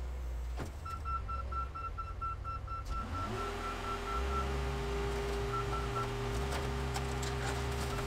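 E-Z Crusher car crusher running with a steady low engine rumble; about three seconds in its engine and hydraulic pump come up to speed into a steady whine as the lid presses down on a pickup truck. A high electronic beep repeats through much of it, in three spells.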